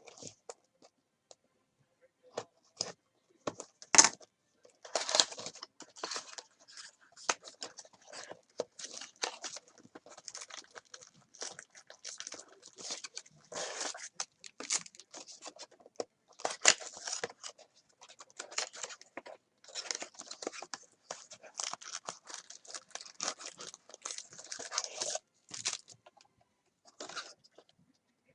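Packaging of sealed trading-card boxes and packs being torn open and handled: irregular tearing, crinkling and crackling of wrapper and cardboard, with a few sharper snaps.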